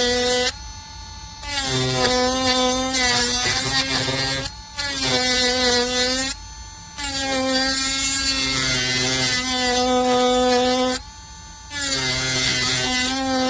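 Small cordless rotary tool's motor running at high speed with a steady whine, cutting out briefly four times and picking up again, the pitch wavering a little as it comes back.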